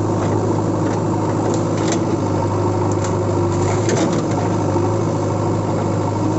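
An engine idling steadily, a low even hum, with a few light clicks on top.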